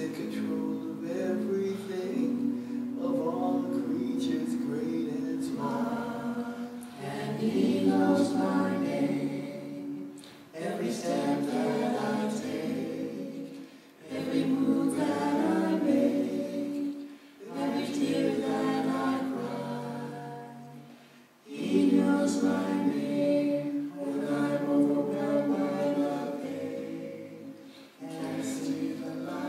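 A small a cappella group of adult voices, men and a woman, singing a slow song together without accompaniment. The singing comes in long phrases with short breaks between them.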